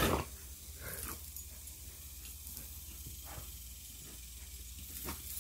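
A dog gives one short, loud bark right at the start, followed by a few much fainter short sounds over a steady low hum.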